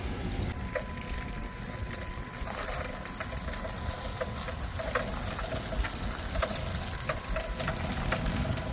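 Footsteps crunching and crackling on an iced-over concrete pad: irregular sharp crunches and ticks of boots on a sheet of ice.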